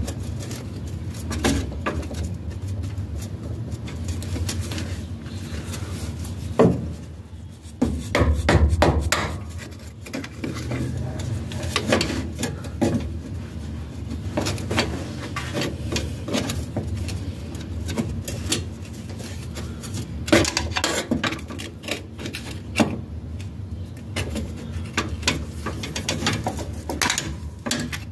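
Irregular metallic clicks, knocks and scraping from work at the 904 TorqueFlite automatic transmission's shift linkage under a car, over a low steady hum.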